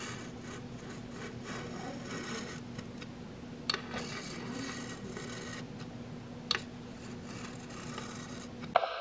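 Caulk-removal scraper blade scraping old silicone caulk out of the joint between countertop and tile backsplash, in repeated short rasping strokes, with a couple of sharp clicks. A steady low hum runs underneath, and a sharp knock comes just before the end.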